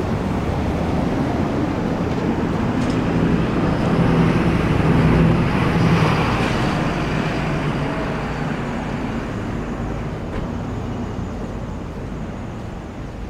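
A motor vehicle passing close on a city street, engine hum and tyre noise building to its loudest about five seconds in, then fading away.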